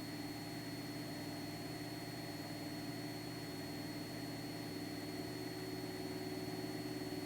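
Cessna 172's piston engine and propeller running steadily in flight, heard as an even drone, with a thin steady high whine over it.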